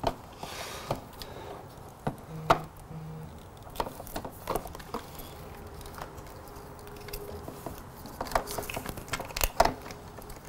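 Scattered light clicks and knocks of small plastic switch-housing parts and wiring being handled and fitted by hand, with a sharper click about two and a half seconds in and a run of clicks near the end.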